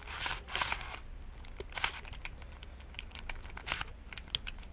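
Tiny plastic Rubik's cube being handled and twisted: irregular small plastic clicks and a few short rasping scrapes.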